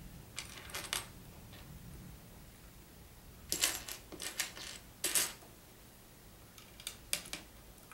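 Loose plastic Lego pieces clicking and rattling against each other and the tabletop as a hand picks through them, in three short bunches of clatter.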